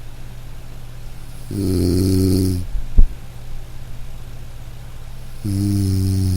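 A person snoring loudly and close by: two snores about four seconds apart, each lasting about a second. A single sharp click falls between them, over a steady low hum.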